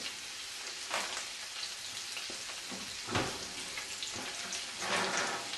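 Top round cube steak sizzling as it fries in oil in a frying pan: a steady crackling hiss with a few brief louder crackles.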